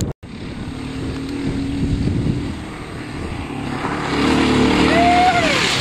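Motorcycle engine running as the bike rides up a gravel road towards the listener, growing louder in the last couple of seconds, with a short drop in pitch near the end as it draws level.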